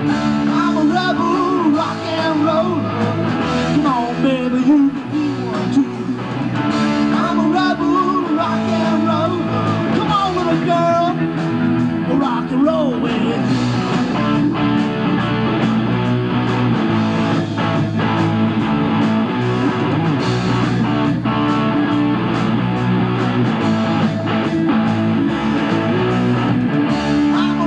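Live rock band playing at full volume: electric guitars, bass and drums. A lead line bends up and down in pitch through the first half, then the band settles into steadier sustained chords.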